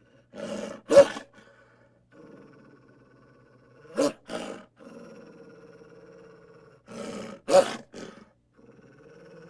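Arctic wolf growling low and steadily, broken three times by loud, sharp snarling outbursts, about a second in, near the middle and near the end.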